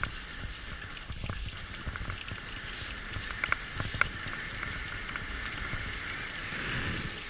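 Wheels of a dog-racing rig rolling over a forest trail under a running team: a steady crunching rattle with scattered small clicks.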